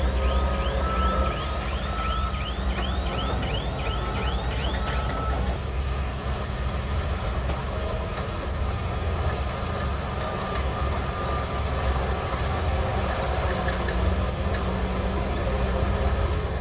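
Shantui DH17C3 Pro crawler bulldozer's diesel engine running steadily. For the first five seconds a rhythmic high squeaking repeats about twice a second, then stops.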